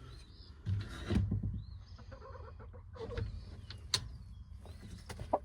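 Hens clucking with short, arching calls, mixed with a few knocks and rustling.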